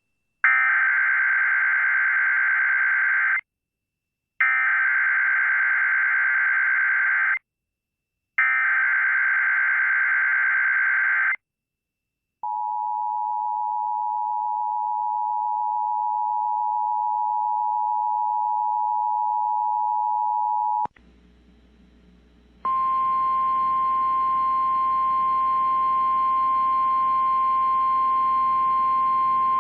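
Emergency Alert System broadcast: three identical bursts of buzzy digital SAME header data, each about three seconds long and about a second apart. Then comes the two-tone EAS attention signal, held for about eight seconds. After a short hissy gap, a steady single-pitch alert tone starts over radio static, the NOAA Weather Radio warning tone in audio relayed from WXK38.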